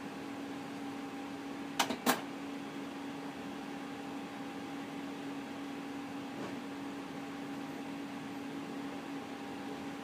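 HP Color LaserJet 2600n running through its colour calibration: a steady motor hum, with two sharp clicks from the mechanism about two seconds in.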